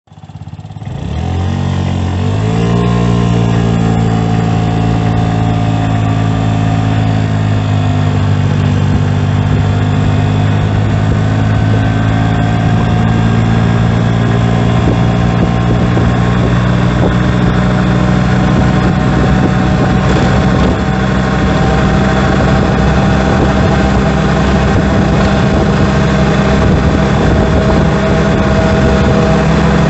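Honda Gyro Canopy four-stroke scooter running. It rises in pitch over the first couple of seconds, then runs steadily, with a drone and whine from the drivetrain. This is the abnormal noise heard around 50 km/h, traced to worn drive shaft bearing bushings.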